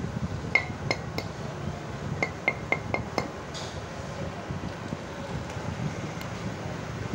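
A run of light metallic clinks, each with a short ring, several in quick succession in the first three seconds or so: small metal motorcycle parts or tools being handled on the bench. A steady fan hum runs underneath.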